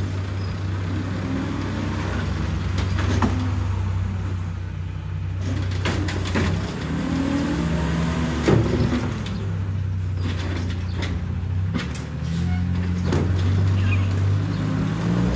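Automated side-loading garbage truck working at the curb: its engine runs steadily, speeding up and slowing down in steps as the lifting arm works, with several sharp clanks and knocks, the loudest about eight and a half seconds in.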